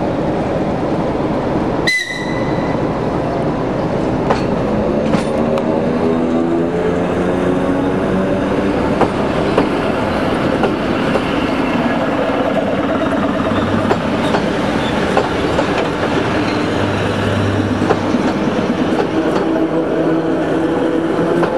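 Electric multiple unit train rolling past at close range: steady running noise with repeated wheel clicks over the rail joints and a humming drive tone that shifts in pitch. About two seconds in there is a single sharp click with a brief ringing tone.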